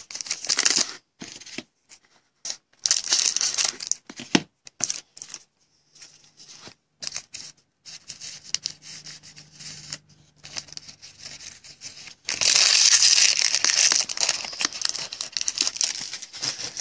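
A trading card pack's wrapper being torn open and crinkled by hand, in several bursts of tearing with softer rustling between them; the longest, loudest tearing comes about twelve seconds in.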